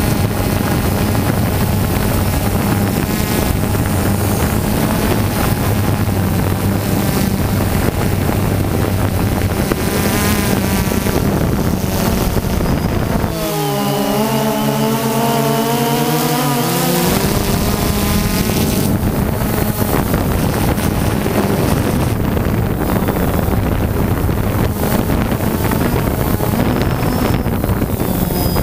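Multirotor drone's electric motors and propellers heard through its own onboard camera: a steady buzzing whine mixed with wind on the microphone. A little under halfway through, the low rumble drops away for a few seconds, and the whine stands out alone, wavering and shifting in pitch.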